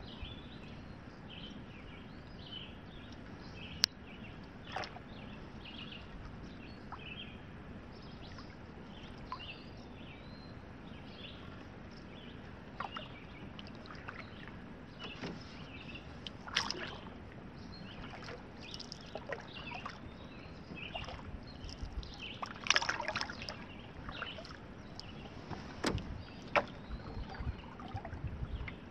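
Canoe paddling: soft paddle strokes and water splashing and dripping off the paddle, with a few sharper splashes or knocks in the second half. Birds call in the background.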